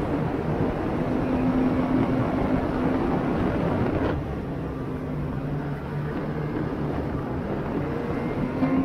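2020 Ski-Doo Expedition Xtreme snowmobile's 850 E-TEC two-stroke engine running steadily while riding the trail, a held engine hum under a rushing noise. The level drops a little about four seconds in, as the throttle eases.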